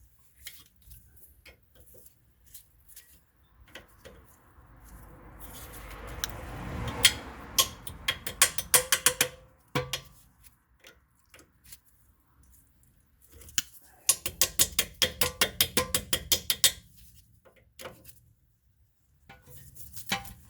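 Metal hand tools clicking and tapping at a tie rod end's castle nut as the cotter pin is worked out: scattered taps, a brief rising rustle, then two runs of quick, even clicks about five a second.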